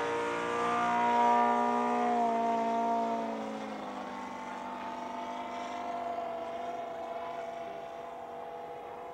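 Engine of a large radio-controlled Polikarpov Po-2 scale model biplane flying past overhead: a steady droning note, loudest about a second in, whose pitch drops around three seconds in as the model passes, then fading as it flies away.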